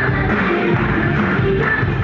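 Loud music playing for a stage dance routine, steady and unbroken, with a heavy low end.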